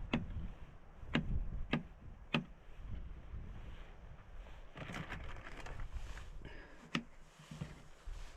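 A handful of sharp knocks or cracks, three close together in the first couple of seconds and one more near the end, with a brief rustle in between, over a low rumble of wind on the microphone.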